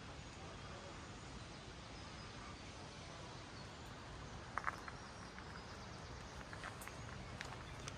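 Steady, faint outdoor background noise, with a pair of short footstep crunches a little past halfway through and a few fainter ticks after them.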